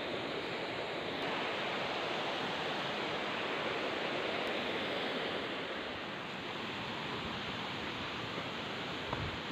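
Rocky mountain stream rushing over stones and small rapids, a steady, even rush of water that eases slightly in the second half. A single soft thump comes near the end.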